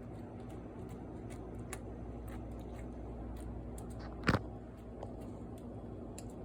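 Sticky slime being squeezed and pulled by hand: faint, scattered sticky clicks and squelches over a steady room hum, with one louder short smack a little past four seconds in.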